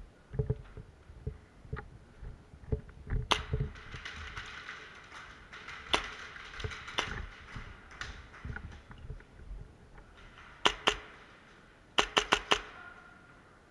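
Airsoft guns firing: scattered single sharp shots, a pair about ten and a half seconds in, and a quick run of four near the end, with softer low thuds in the first few seconds.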